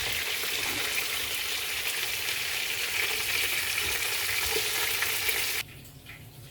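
Marinated chicken pieces frying in hot oil in a pan: a steady sizzle with a few faint knocks, cutting off suddenly near the end. The chicken is half cooked at this stage.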